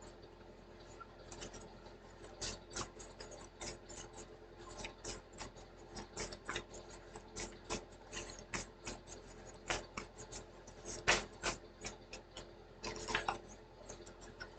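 Irregular soft clicks and taps with brief light rubbing, as of small objects being handled on a surface, over a faint steady hum; a few louder taps come about two thirds of the way through.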